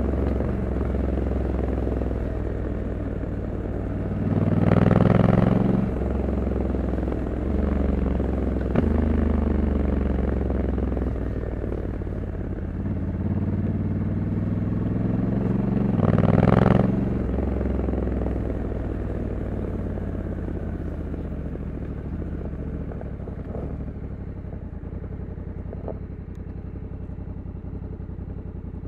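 Honda Africa Twin 1100 DCT's parallel-twin engine running on the road on its stock exhaust, its pitch rising and falling. It gives two louder bursts of throttle about five and seventeen seconds in, then quietens steadily as the bike slows near the end.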